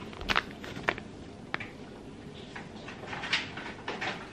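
Crinkling of foil sheet-mask sachets and a paper shopping bag being handled, in short scattered crackles, a few of them near the start and two more near the end.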